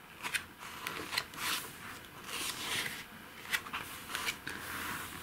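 Pages of a thick, stiff booklet being turned by hand: a few soft papery swishes and rustles with small ticks as the pages are handled.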